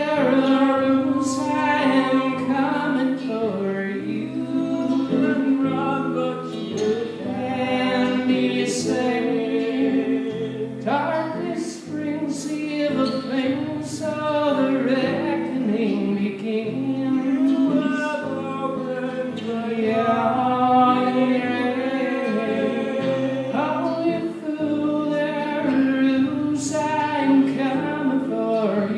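A song performed live: sustained sung vocals over guitar accompaniment.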